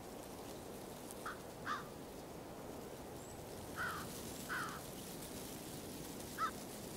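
A bird calling five times in short single calls: two close together early, two more midway and one near the end. A steady background noise runs under the calls.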